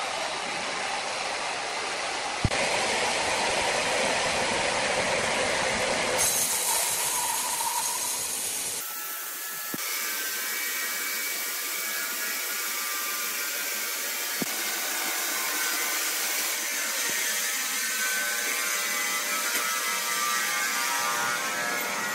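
Large horizontal band sawmill running, with steady mechanical noise from the machine and its blade. The sound changes abruptly a few times. In the latter part a thin steady whine sits over it, with a sharp click or two.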